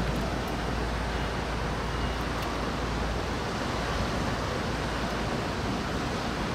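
Steady wind noise with a constant low rumble, without a break.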